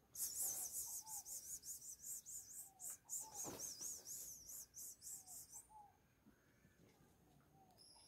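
A rapid run of high-pitched animal chirps, about five a second, which stops abruptly after some five and a half seconds, with a few faint lower short calls scattered underneath.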